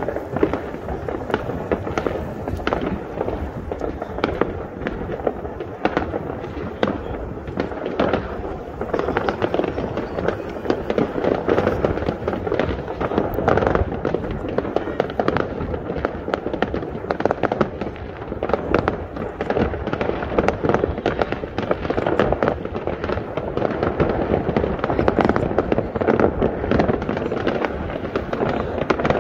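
Fireworks and firecrackers going off all over a city at once: a dense, unbroken crackle of many overlapping bangs.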